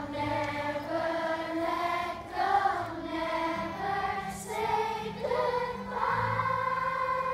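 A large group of children singing together in unison, with long held notes, to acoustic guitar accompaniment.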